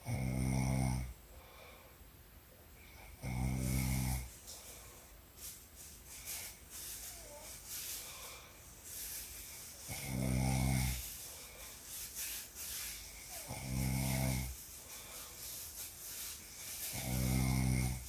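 A woman snoring in her sleep: five low-pitched snores, each about a second long, coming every three to seven seconds.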